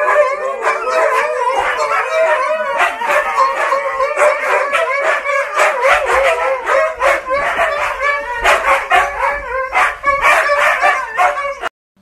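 Huskies howling and yipping together: wavering, overlapping howls with sharp yips mixed in, cutting off abruptly just before the end.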